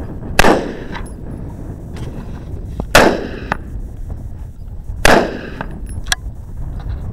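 Smith & Wesson AR-15 rifle firing single aimed shots, three of them about two to two and a half seconds apart, each a sharp crack with a short echo, with a fourth shot right at the end.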